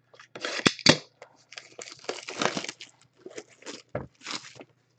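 Plastic shrink wrap being torn and crinkled off a cardboard trading card box, in irregular crackling bursts with a few sharp knocks.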